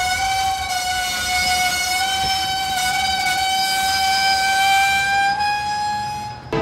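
Freight car wheels squealing against the rail as the train rounds a curve: one long high squeal that slowly rises in pitch and cuts off near the end.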